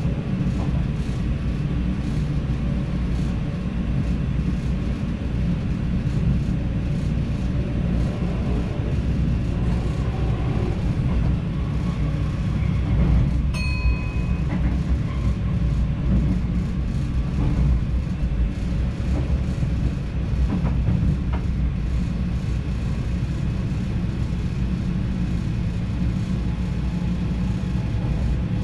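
NS DDZ double-deck electric train running on the rails, heard from the driver's cab: a steady low rumble with a few faint clicks of the wheels over rail joints. A short high beep sounds about halfway through.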